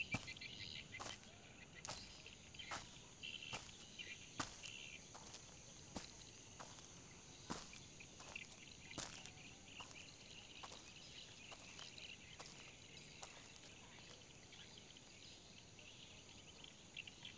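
Footsteps on dry ground and rubble, a little more than one a second and sparser later on, over faint insect and bird chirping.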